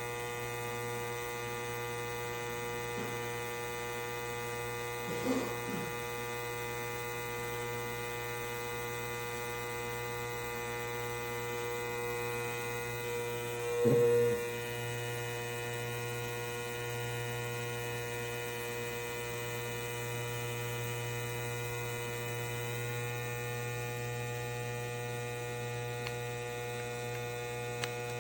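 A steady electrical hum made of many steady tones, with two brief, faint sounds about five and fourteen seconds in.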